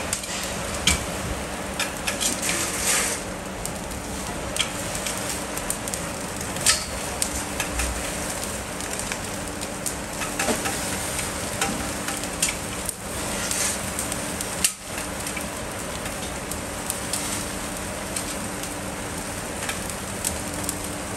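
Thick bone-in beef steaks sizzling on a grill over wood embers, with many sharp crackles as fat drips into the embers and flares up. A steady low hum runs underneath.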